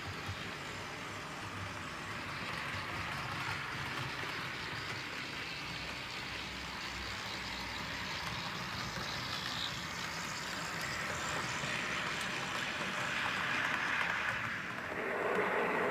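OO gauge model diesel locomotive running on a layout, with steady diesel engine and running noise; the sound grows louder and changes near the end.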